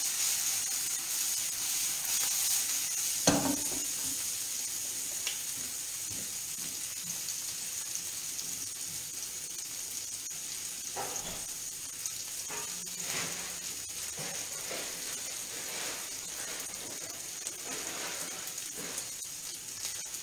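Octopus tentacle pieces sizzling steadily as they fry in oil in a pan, with a single knock about three seconds in.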